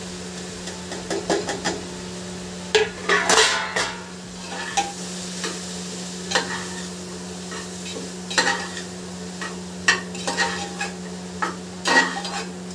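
Steel spatula scraping and knocking against the inside of an aluminium pressure cooker as spices are stirred into a frying masala, in irregular strokes over a light sizzle. A steady low hum runs underneath.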